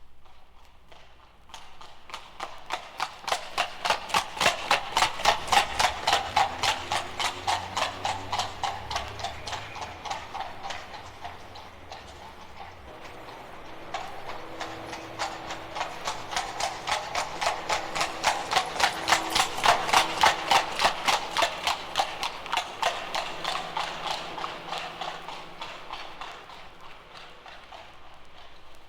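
Horse hoofbeats, a rapid, even clip-clop that grows louder and fades away twice, like a horse passing by on a hard surface.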